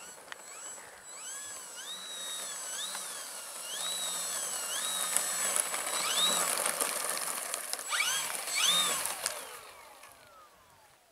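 Electric motor and propeller of an RC bush plane taxiing on grass, throttle blipped up and down in repeated rising-and-falling whines about once a second. Near the end it gives a last sharp rev, then winds down in one long falling whine.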